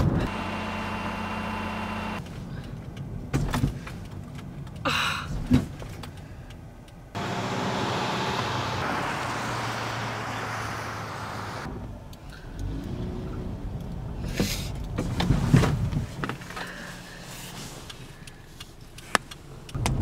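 Unprocessed sound of a small car driving: steady low engine hum and road noise, broken by abrupt cuts every few seconds, with a stretch of steady rushing noise in the middle and a few short knocks.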